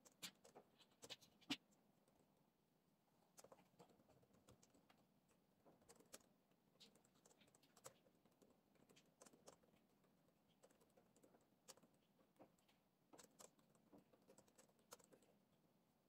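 Typing on a laptop keyboard: quiet key clicks in irregular runs and pauses.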